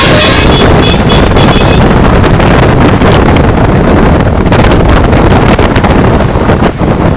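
Bus telolet horn sounding its last notes in the first couple of seconds, then a loud, distorted rumble with scattered crackles that overloads the recording.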